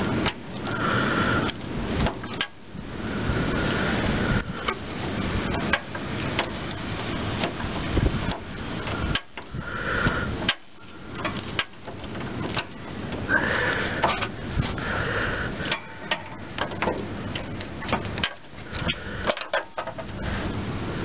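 Hands and a screwdriver working at a lawn tractor's brake-pedal safety switch and its wire terminals: irregular clicks, knocks, scrapes and rustling, with a few brief squeaks.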